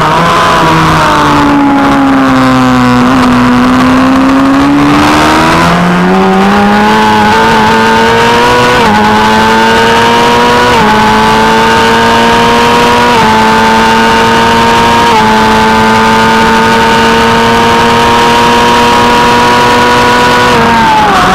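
Onboard sound of a 600 cc superstock racing motorcycle's engine at race pace: revs fall as the bike slows for a corner, then climb hard out of it with four quick upshifts about two seconds apart, and drop again near the end as it slows for the next turn.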